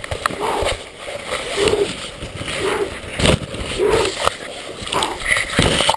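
Rustling and sharp knocks as a helmet camera is jostled through brush and grass, with short voice-like calls repeating about once a second.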